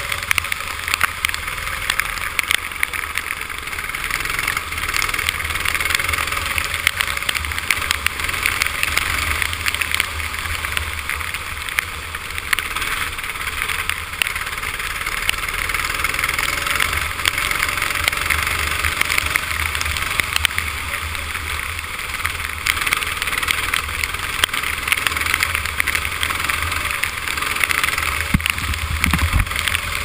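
Tag kart's two-stroke engine running hard at racing speed on a wet track, heard from on board with a steady hiss of water spray and wind mixed in.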